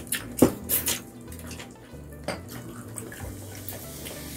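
Close-up eating sounds: chewing and hands picking at chicken and rice on a foil-lined table, with a few sharp clicks and knocks, the loudest about half a second in.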